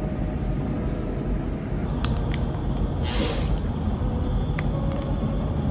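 Steady low rumble of a road vehicle in motion, with a few light clicks and a short hiss about three seconds in.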